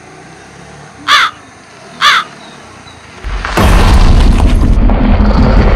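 Two short harsh bird calls about a second apart, then a loud low rumble that sets in about three and a half seconds in and carries on.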